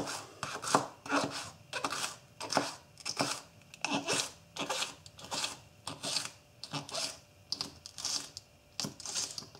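Spyderco Native 5 folding knife slicing spring onions into rings on a cutting board: a steady run of short cuts, about two a second.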